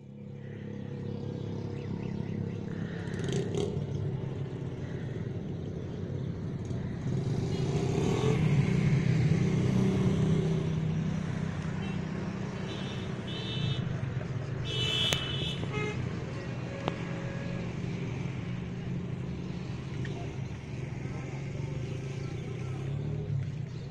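Truck engine idling steadily, with a vehicle horn giving a few short toots around the middle.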